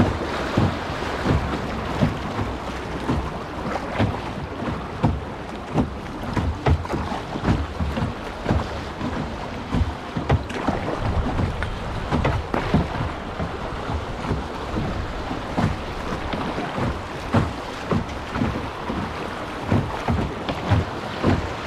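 Small boat on a river: splashing water and wind rumbling on the microphone, with frequent irregular low knocks.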